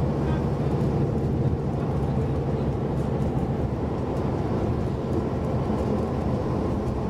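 Scania Enviro 400 double-decker bus heard from inside the passenger saloon while cruising at speed: a steady low engine drone mixed with road noise, with no change in pace.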